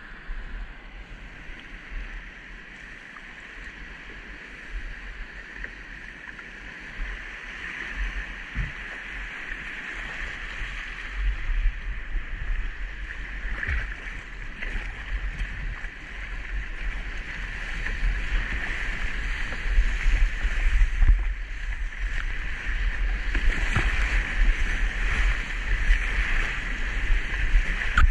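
Whitewater rushing past a slalom kayak on a whitewater course, with paddle blades splashing into the water now and then and wind rumbling on the microphone. The water grows steadily louder as the boat runs into rougher rapids.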